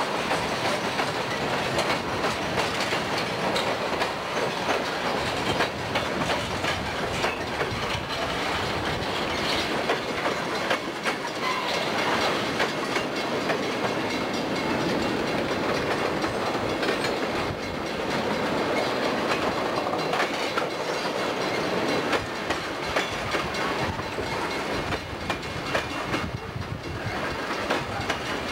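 Freight cars rolling past close to the track: steel wheels clattering on the rails, with frequent sharp clicks from the wheels over the joints.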